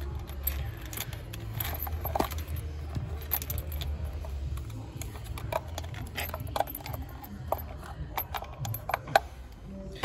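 Scattered light metallic clicks and clinks as a new spark plug on a telescopic magnet is lowered into its spark plug well, over a low steady hum.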